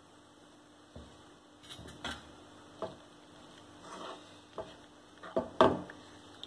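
Kitchen utensils knocking and scraping against a cooking pan in several separate clatters, the loudest a little past five seconds in, as thinned peanut, sesame and coconut paste goes into the onion masala.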